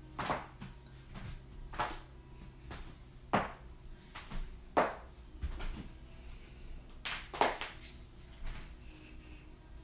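Joints cracking under chiropractic adjustments: a series of sharp pops, roughly one every second and a half, with two in quick succession about seven seconds in, over a low steady room hum.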